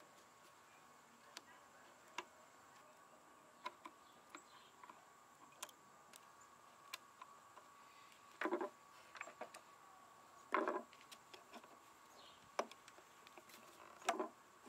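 Staples being pried and pulled out of a wooden cabinet side with a screwdriver and needle-nose pliers: scattered small metal clicks and taps, with three short louder scrapes in the second half.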